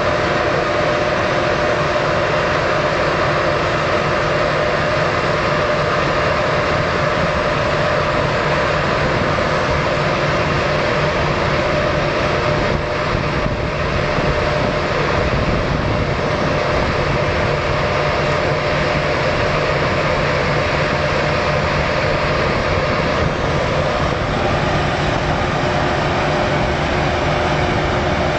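Claas Lexion 580 combine harvester running steadily while harvesting wheat: a dense engine drone with steady high whining tones from the machinery.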